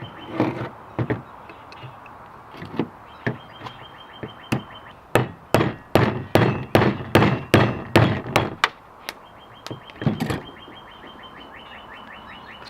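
Hammer striking a 3/16 punch to drive the press-fit e-brake lever pin out of a Ford Escape rear brake caliper. A few scattered taps come first, then a quick run of about a dozen sharp metal blows at roughly three a second, then two more near the end.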